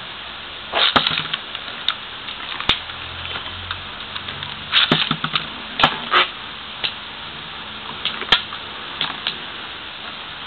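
Metal Beyblade spinning tops clashing in a stadium: irregular sharp clacks, some in quick bunches, over a steady hiss.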